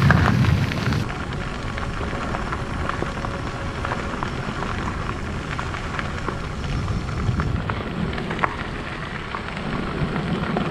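Bicycle tyres rolling over a gravel forest road, a steady crunching crackle of small ticks, with wind rumbling on the camera microphone.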